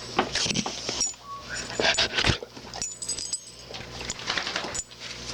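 Dogs play-fighting: a run of scuffling, clicking and knocking, with a brief whine about a second in.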